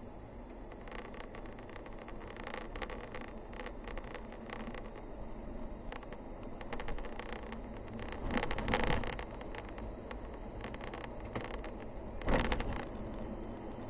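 A vehicle driving, with steady road noise and scattered small rattles and clicks. Two louder bumps, a longer one about eight seconds in and a sharper one near the end.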